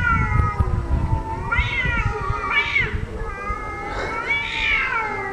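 Cats caterwauling in a face-off: long, drawn-out yowls that rise and fall in pitch, about four in a row, the last and longest near the end.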